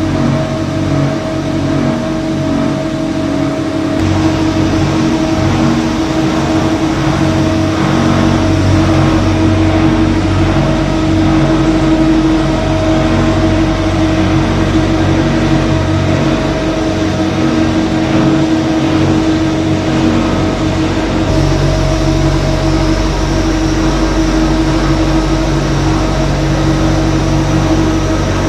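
LDPE plastic-film washing and recycling line running: its motors, conveyors and washing machines make a steady, loud industrial hum with a couple of held tones. The mix of the hum changes abruptly about 4 seconds and 21 seconds in.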